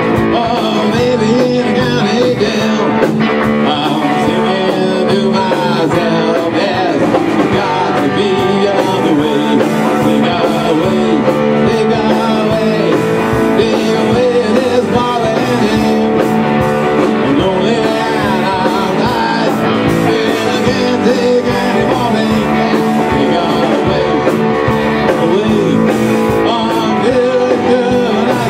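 Rock band playing live at a steady loud level: electric guitars, electric bass and a drum kit.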